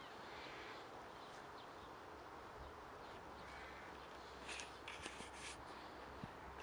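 Faint outdoor ambience with a bird calling twice, once under a second in and again about three and a half seconds in. A few light clicks or rustles come about four and a half to five and a half seconds in.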